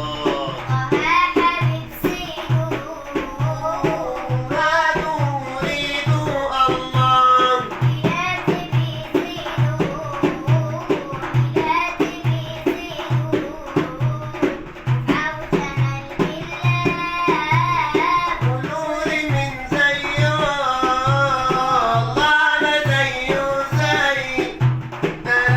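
A young girl singing an Arabic nasheed (devotional song) over a steady, evenly repeating drum beat.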